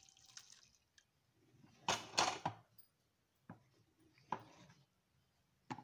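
Jaggery syrup poured from a small clay pot into a larger clay pot of thick tapioca payasam, then a wooden spoon stirring, scraping and knocking against the clay pots: a few separate knocks and scrapes, the loudest about two seconds in.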